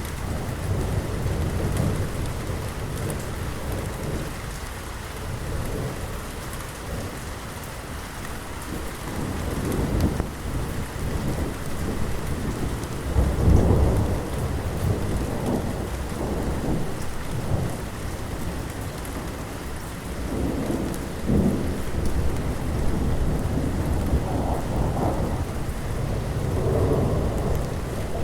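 Steady heavy rain with rolling thunder rumbling over it, the loudest peal about halfway through and further rumbles near the end.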